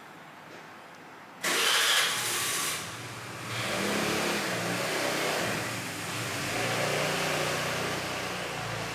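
A bank of ten Huntkey Arctic Circle GX120 PC case fans starting up: a sudden loud rush of air about a second and a half in, easing briefly, then a steady airflow rush with a low motor hum.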